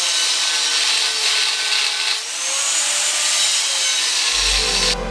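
Angle grinder working steel: a loud, harsh hiss of the disc on the metal, with the motor's whine slowly dipping and rising in pitch under load. It cuts off just before the end as music comes in.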